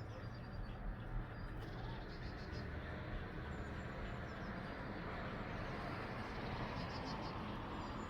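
Small birds giving faint, short high chirps a couple of times over a steady outdoor background hiss.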